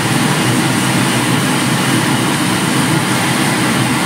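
Chopped onion and garlic sizzling in oil in a nonstick frying pan on medium heat, with a steady low rumble underneath.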